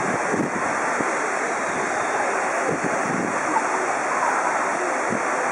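Steady rushing noise, with a faint murmur of voices.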